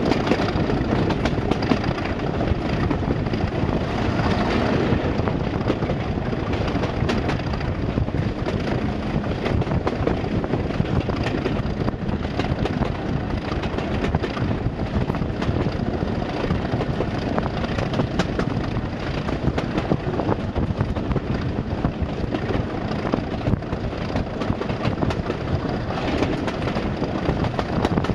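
British Rail diesel locomotive engine running steadily and loudly.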